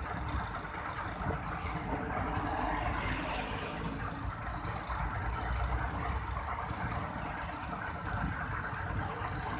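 Road traffic noise: engines and tyres of vehicles running on a highway, with a steady low rumble.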